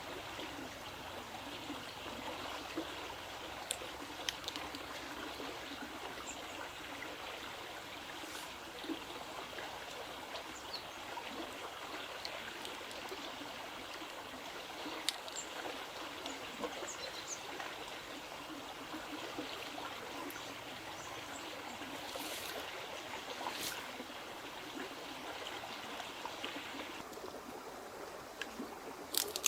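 Water running and trickling steadily, with scattered small clicks and ticks.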